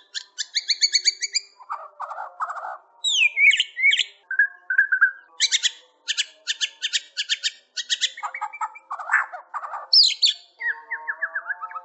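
White-rumped shama (murai batu) in full, non-stop song. It runs through a varied string of fast trills, clear gliding whistles and harsh, scratchy phrases with hardly a pause.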